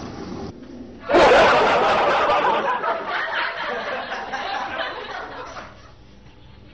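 Audience laughter, as from a sitcom laugh track, starting abruptly about a second in and dying away after about four and a half seconds.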